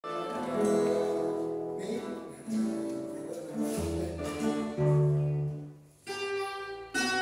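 Fado ensemble playing an instrumental introduction: Portuguese guitar picking the melody over classical guitar (viola) chords, with deep bass notes from the acoustic bass guitar in the middle. The playing thins out almost to silence about six seconds in, then a new phrase starts.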